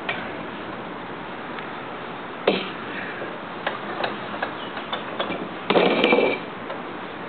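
Pipe wrench working a 7/8-inch threaded anchor bolt: scattered metal clicks and knocks as the jaws grip and slip. There is one sharp knock about two and a half seconds in, and a louder grating scrape lasting under a second near the end.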